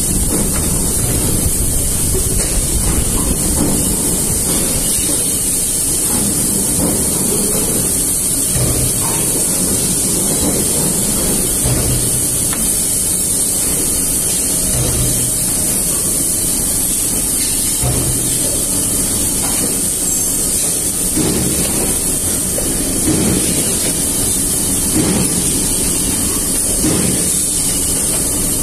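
YLM CNC pipe bending machine running through a bend cycle: a steady high hiss over a low machine rumble, with a few short low tones around the middle as it moves.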